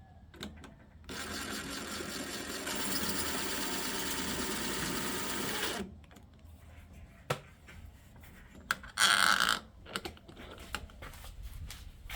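Power drill running steadily for about five seconds and getting louder partway through, then a second short run about nine seconds in, with clicks and knocks of handling in between.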